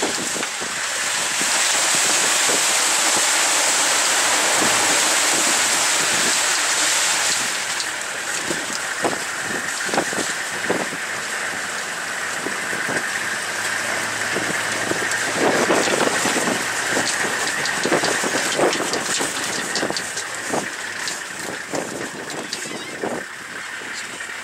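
Open-topped safari vehicle driving along a rough dirt track: a loud hiss of wind and road noise for the first several seconds, then quieter running with scattered knocks and rattles from the bumpy ride.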